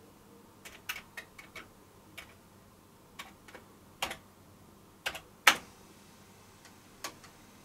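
Separate keystrokes on a Commodore 64C keyboard, typed one at a time in small groups as the disk-directory load command goes in, the loudest single clack about five and a half seconds in as Return is pressed.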